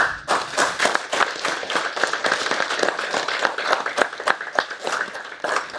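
A small group of people clapping their hands in applause.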